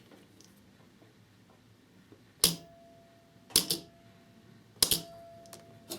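A homemade battery spot welder fires three welds, joining the connecting strip to the 18650 lithium cells. Each weld is a sharp crack, about a second apart, with a faint steady whine between them.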